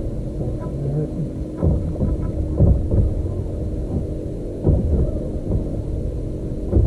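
Steady low rumble on a bass boat's deck, with four dull thumps spread unevenly through it.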